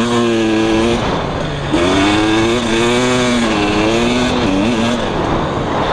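KTM 300 EXC single-cylinder two-stroke dirt bike engine under way in sand, its pitch rising and falling again and again as it revs up and down, with brief drops at about one second in and near the end.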